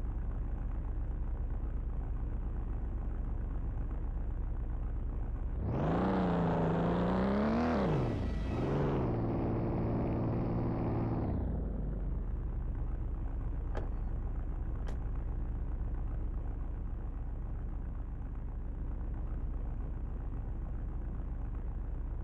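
A vehicle engine idling steadily. About six seconds in it briefly rises and falls in pitch, as if revved, and settles back to idle after about five seconds.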